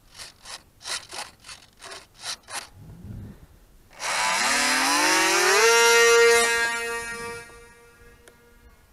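Delta Ray RC plane's electric motor and pusher propeller throttling up for launch: a whine that rises in pitch for about a second and a half, holds steady, then fades away. It is preceded by a run of short scraping or rustling bursts.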